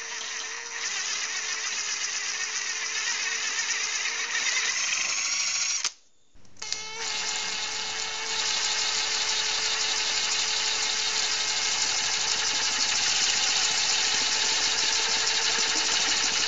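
Drill press running at a steady pitch while a twist bit cuts into a small metal piece held in a vise, with a hiss of cutting over the motor hum. About six seconds in the sound cuts out for a moment, then resumes slightly louder.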